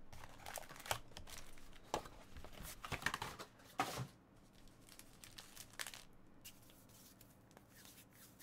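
Foil trading-card packs and their cardboard box crinkling and crackling as the packs are lifted out and stacked. The handling is busiest and loudest in the first four seconds, then fades to a few faint rustles.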